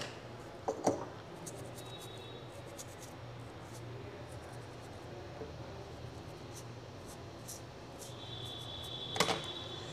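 Quiet phone-repair bench handling: a couple of light clicks about a second in and a sharper click near the end, as metal tweezers pick up and handle a small chip, with a low steady hum and a faint high tone late on.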